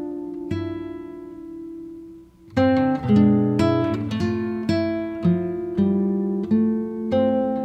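Background music of acoustic guitar: plucked notes and chords ringing out and fading, dying away about two seconds in before starting again with a note about every half second.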